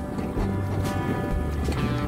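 Background music with a steady beat and repeating bass notes.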